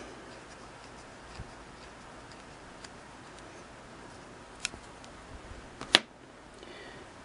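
Faint, scattered metal ticks of a small screwdriver turning the tripping-arm mounting screw into a Singer 99K bobbin-winder frame, with a sharper click about six seconds in.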